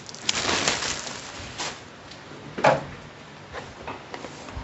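Cardboard retail box being handled on a table: a scratchy rustle of plastic wrapping near the start, a single knock about two and a half seconds in, and a few small taps and scrapes as the box is turned over by hand.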